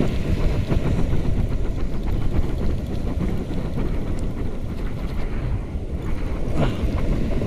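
Wind buffeting the microphone: a steady low rumble. Faint handling knocks run through it.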